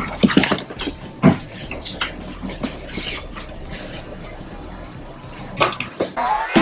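Cardboard box packaging being handled: the cardboard lid and flaps lifted and moved, and polystyrene foam packing inserts rubbing and knocking, in irregular scrapes and thumps. Music starts near the end.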